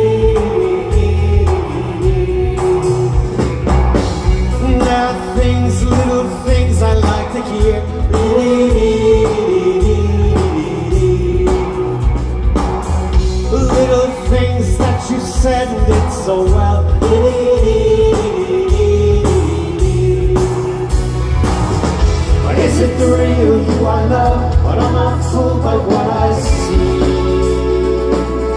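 Live rock band playing a song through the stage PA: drums and bass keeping a steady beat under electric guitars and keyboard, with a male singer's vocals.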